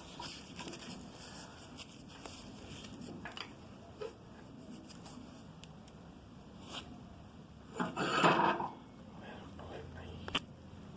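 Handling noise from a metal workpiece being set up: scattered light knocks and clicks, and a louder scraping rattle lasting under a second about eight seconds in.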